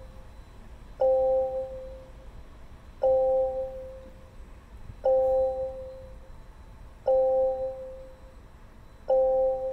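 Jaguar I-Pace cabin warning chime sounding five times, one bell-like ding every two seconds that rings out for about a second each time. It is the car's repeating alert while the instrument cluster shows fault and warning messages.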